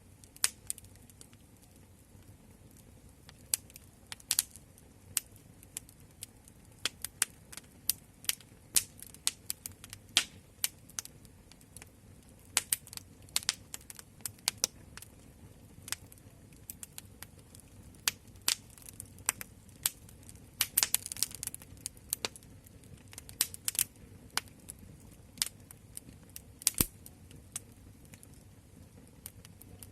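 Wood fire crackling: irregular sharp pops and snaps over a soft low rumble of flames, with a flurry of crackles about two-thirds of the way in.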